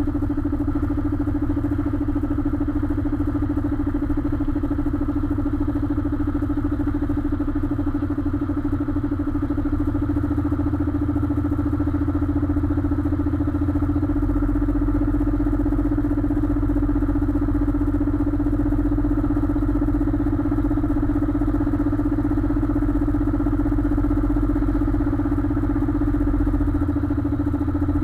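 Container prime mover's diesel engine running steadily at low speed, a constant drone over a low rumble that deepens slightly about halfway through.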